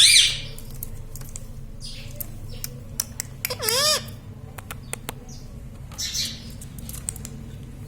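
Pet parrot giving a few short calls, the loudest a squawk that dips and rises in pitch about three and a half seconds in, with scattered sharp clicks between them.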